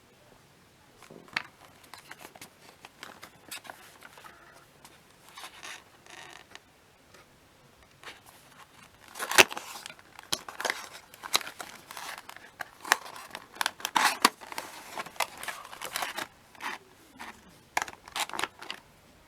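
Close-up handling noises: irregular clicks, scrapes and crinkling, sparse at first and busier and louder from about halfway through.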